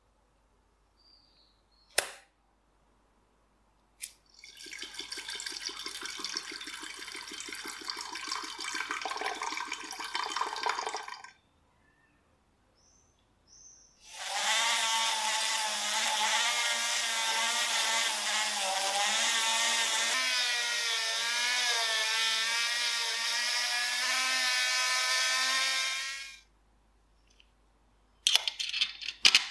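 A small electric power tool running in two stretches, first for several seconds and then, louder, for about twelve seconds, its pitch wavering slightly under load. Near the end, quick light clinks of small metal parts in a steel tray.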